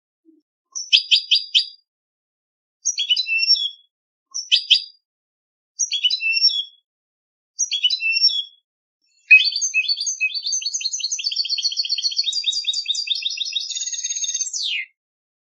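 European goldfinch singing: five short chattering phrases, then a long unbroken run of rapid twittering notes lasting about five seconds that ends in a quick falling whistle.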